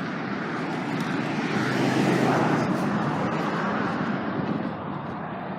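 Road traffic: a vehicle passing on the street, its noise swelling to a peak about two seconds in and then fading.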